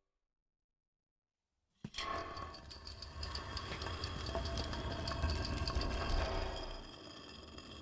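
Silence, then a sudden hit about two seconds in opens a busy run of mechanical clicking and whirring over a low rumble, a designed sound effect made from household objects.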